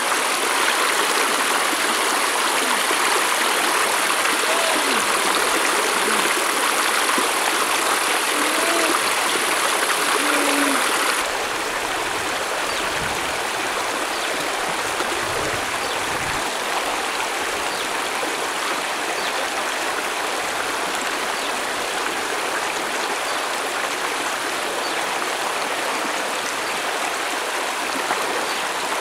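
Shallow stream rushing over rocks, a steady loud rush of water that drops a little in level about eleven seconds in.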